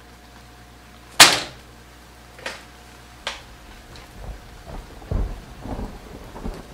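A loud, sharp bang with a ringing tail about a second in, then two fainter knocks, followed by low thumps and shuffling.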